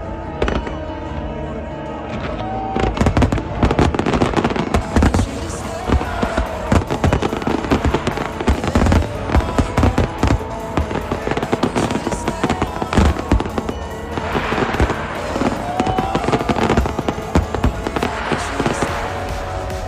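Aerial fireworks going off in a rapid barrage of sharp bangs, starting about three seconds in, with bursts of crackling near the end.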